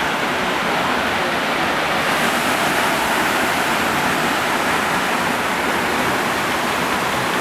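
A waterfall rushing steadily, the constant noise of falling water.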